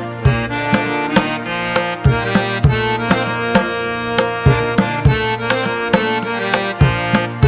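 Background music: sustained melodic instruments over a steady percussion beat of about two strikes a second.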